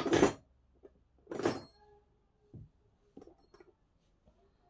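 Handling noise from tools and small reel parts on a bench: two short, loud scraping rustles in the first two seconds, then a few light clicks.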